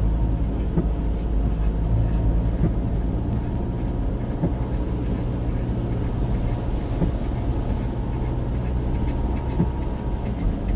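Car interior noise while driving: a steady low rumble of engine and road noise heard from inside the cabin.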